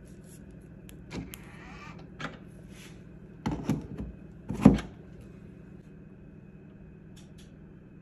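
Tesla Mobile Connector charging handle being pushed into a Tesla's charge port: a few clicks and knocks, the loudest a solid clunk about four and a half seconds in as the plug seats in the port. A steady low hum runs underneath.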